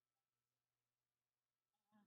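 Near silence: faint room tone with a low steady hum, and one brief faint pitched sound at the very end.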